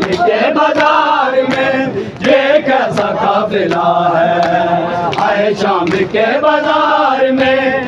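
Large group of men chanting a Shia nauha (lament) in unison, loud and sustained, with sharp slaps of matam, open hands beating on bare chests, about twice a second.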